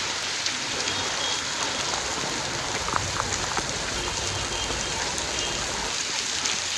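Heavy monsoon rain pouring down steadily, an even hiss of rain falling on the street and the surfaces around.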